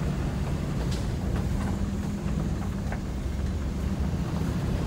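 Truck driving slowly, at about 15 miles an hour, on a crushed-stone gravel road, heard from inside the cab. A steady low rumble of engine and tyres, with a few light ticks.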